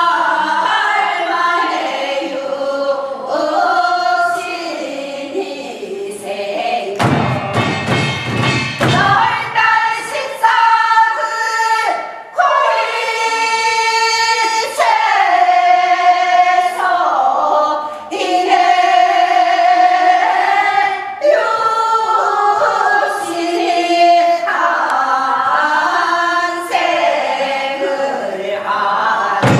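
A group of voices singing Gyeonggi hwimori japga, Korean folk song delivered as rapid, continuous chant-like singing in unison. A few low thumps come in about a quarter of the way through.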